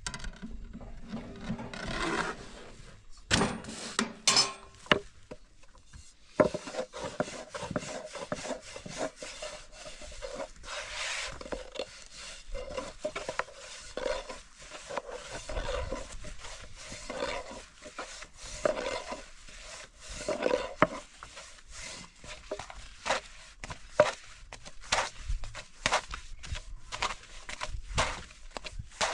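Thin wooden rolling pin working flatbread dough on a round wooden board: repeated rubbing strokes broken by many sharp wooden knocks and clacks, with a cluster of louder knocks in the first few seconds.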